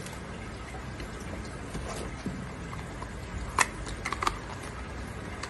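A few light clicks and knocks of handling, bunched between about three and a half and four and a half seconds in, as a small cardboard box is taken out of a foam-lined carrying case, over a steady low background noise.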